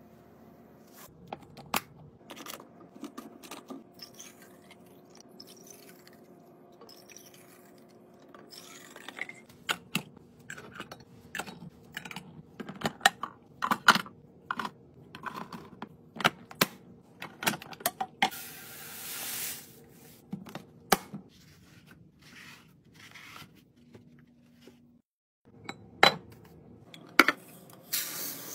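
A run of close-up restocking sounds: sharp clicks, taps and knocks of glass jars, lids and clear plastic canisters being handled and filled, with a rustle of packaging for a second or so about two-thirds of the way in. Near the end, small beads clatter and patter as they are poured into a glass pitcher.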